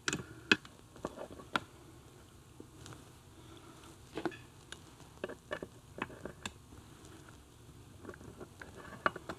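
Scattered sharp clicks and light knocks of steel gears, shafts and a selector rod being handled and seated by hand in a Triumph Tiger Cub's aluminium gearbox case, with quiet stretches between.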